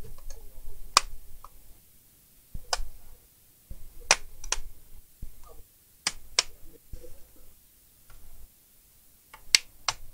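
Sharp plastic clicks from hands pressing and prodding an HP 250 G6 laptop's keyboard deck, several coming in quick pairs a few seconds apart, with soft handling bumps in between.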